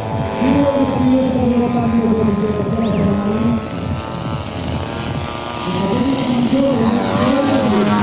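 Engines and propellers of two radio-controlled aerobatic model planes running, their pitch rising and falling repeatedly with the throttle as they fly 3D manoeuvres.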